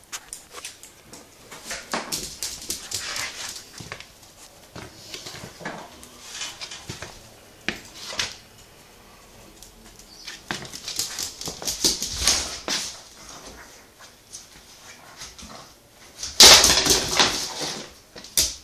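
Bedlington terriers at play, making dog sounds and scuffling in irregular short bursts, the loudest stretch about two seconds before the end.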